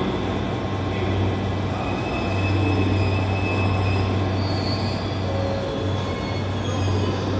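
Train pulling slowly into a station, with faint high-pitched wheel squeals over a steady low hum and rumbling track noise.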